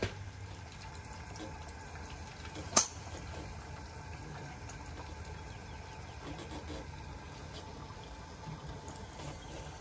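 Battered pieces sizzling and bubbling in hot frying oil in a cast-iron pot, a steady hiss with a low rumble underneath. A single sharp click comes about three seconds in.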